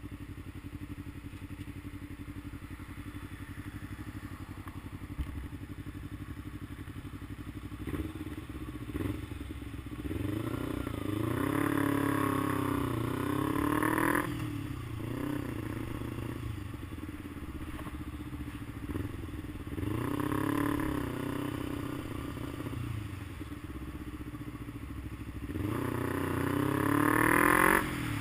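Vehicle engine running steadily, then speeding up three times, its pitch climbing in steps as if through gear changes and falling back, starting about ten, nineteen and twenty-five seconds in.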